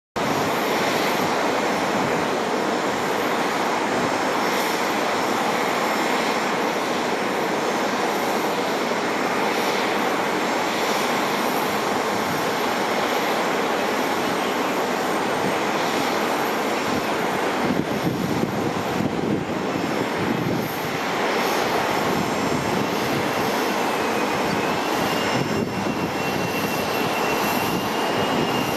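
Lockheed Martin F-35A Lightning II's single Pratt & Whitney F135 turbofan on a landing approach, a loud steady jet roar. A thin high whine joins in near the end.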